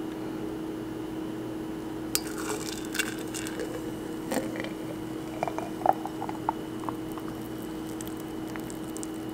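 Fresh pineapple strawberry juice poured in a stream into an empty glass mason jar, with scattered small splashes and clinks as the jar fills, over a steady low hum.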